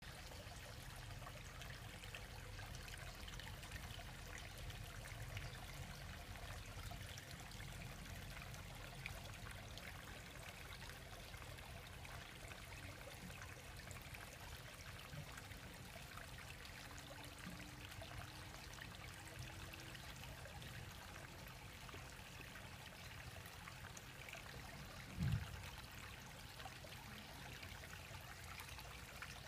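Faint, steady trickle of running water in a garden koi pond, with one brief low thump a few seconds before the end.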